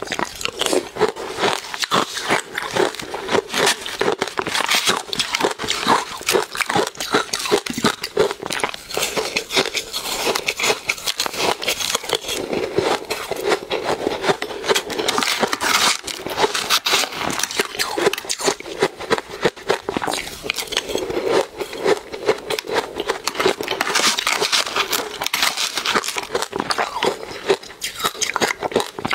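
Continuous crunching and crackling of mouthfuls of soft powdery ice coated in matcha being bitten and chewed, spoonful after spoonful, with many small crackles running together.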